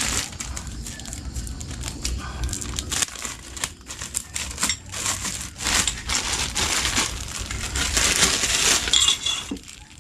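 Crinkling and rustling of packaging, with small clicks, as exhaust pipe parts are handled and unwrapped; it comes in uneven spurts, busiest in the second half.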